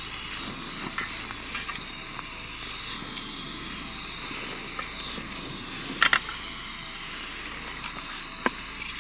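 Portable gas canister stove burner hissing steadily under a tawa, with sharp metal clinks and taps of tongs and a knife against the pan as rotis are turned, the loudest clinks about six seconds in.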